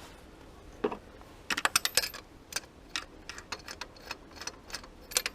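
Irregular sharp metallic clicks and clinks of hand tools on engine parts, with a quick run of several clicks about one and a half seconds in.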